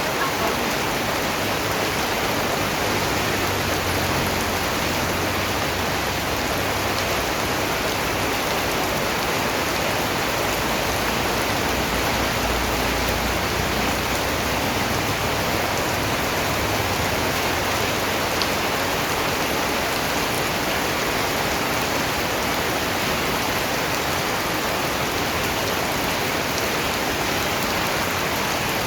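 Steady rain falling, an even, unbroken hiss of raindrops.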